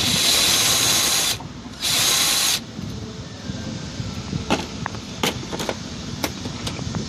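Power drill driving a socket on a long extension, run in two short spurts of about a second each, tightening a nut on the Prius hybrid battery's terminal. Several sharp clicks follow.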